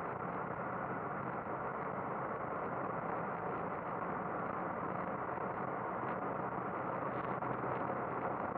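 Boeing 737-800 flight-deck noise: a steady rushing of engine and airflow noise with no distinct tones, heard from inside the cockpit.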